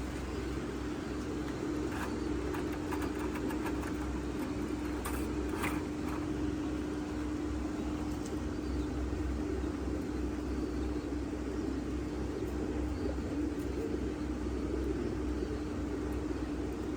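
Steady machine hum with one constant tone, with a few light clicks about two seconds in and again around five to six seconds in.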